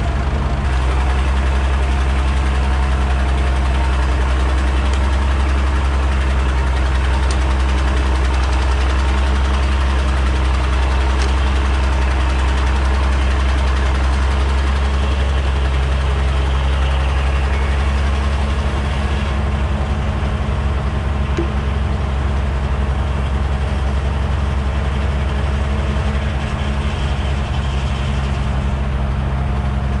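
An engine idling steadily, with a low, even hum that does not change pitch.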